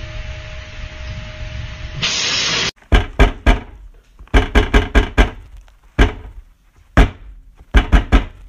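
A steady noisy hum, then a brief loud burst of hiss, followed by a run of sharp clicks or snaps, most of them in quick clusters of two to five.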